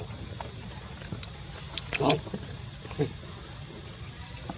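A steady, high-pitched chorus of insects, with a brief soft sound about two seconds in and another a second later.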